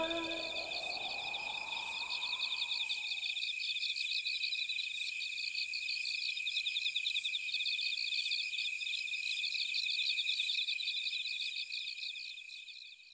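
Insects chirping in a steady, high-pitched pulsing chorus that fades out near the end; the tail of music dies away in the first couple of seconds.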